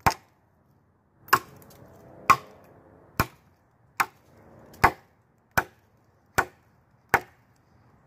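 Machete chopping into a wooden branch: nine sharp strikes at a steady pace, a little under one a second.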